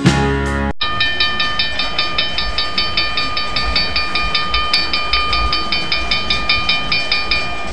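Background music cuts off just under a second in. A railroad warning bell then rings rapidly, about six strikes a second, over the low rumble of an Illinois Central diesel locomotive rolling past. The bell stops shortly before the end.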